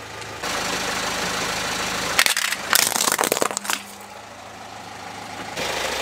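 Car tyre rolling over plastic toys, with a cluster of sharp plastic cracks about two to three and a half seconds in as the pieces break, over a car engine idling.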